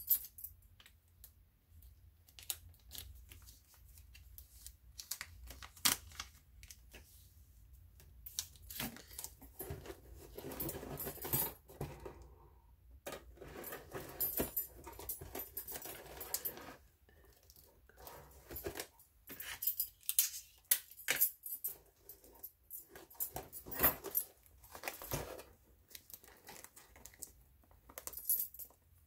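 Paper and cardboard being handled: irregular rustling, crinkling and tapping as paper strips and tape are fitted and pressed onto a cardboard box, with metal bangle bracelets clinking now and then.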